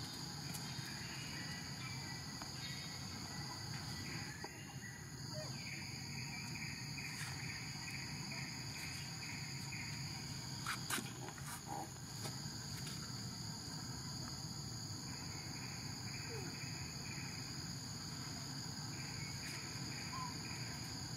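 Steady, high-pitched insect chorus of cicadas or crickets, with a pulsing insect call joining in for a few stretches. A sharp click sounds about halfway through.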